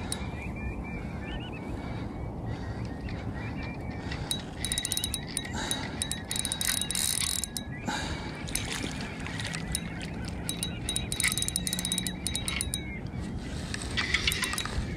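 Spinning reel clicking and ticking in short bursts while a hooked sea trout is played in on a bent rod.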